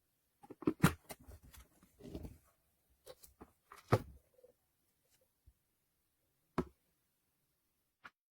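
Irregular clicks and knocks of objects being handled, with the loudest knocks about a second in and about four seconds in, then a few single clicks spaced out. No motor is running.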